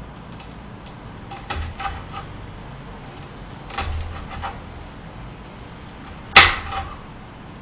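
Kitchen knife chopping green hot chili peppers on a cutting board: a few scattered knocks of the blade against the board, then one much louder sharp knock about six seconds in.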